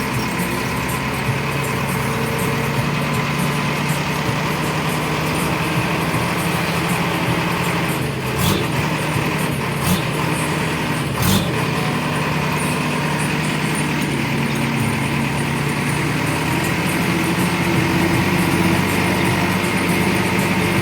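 Diesel engine running steadily at a worksite machine, with three sharp knocks in the middle, about a second and a half apart.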